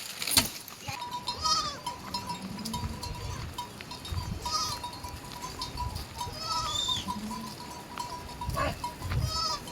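Goats bleating: short calls that rise and fall in pitch, about four of them spaced two to three seconds apart.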